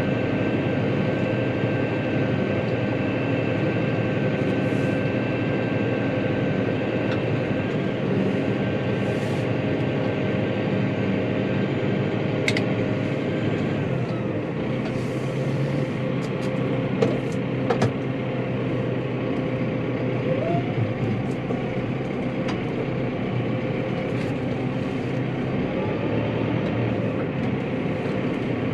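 Tractor engine running steadily under load while pulling a plough, with a few light clicks and knocks partway through.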